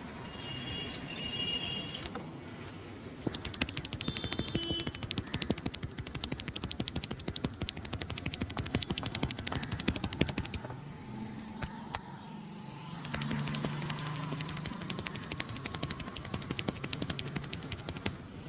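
Rapid volleys of sharp hand strikes from a barber's percussive massage, several slaps a second. They pause for a couple of seconds about ten seconds in, then start again.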